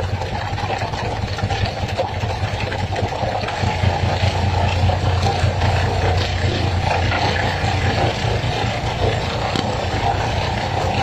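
A fishing boat's engine running steadily with a low hum, over water splashing, with faint scattered knocks from fish landing on the wooden deck.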